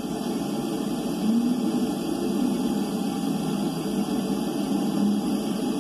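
Underwater hydrophone sound: a steady low rumbling noise, with faint brief tones about a second and a half in and again near the end.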